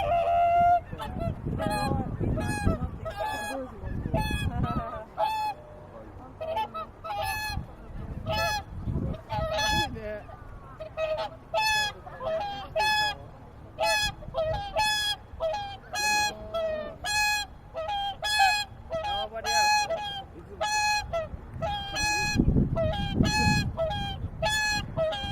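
A flock of swans calling, a steady stream of overlapping honking calls, roughly two a second. Bursts of low rumbling noise come and go near the start and again about 22 seconds in.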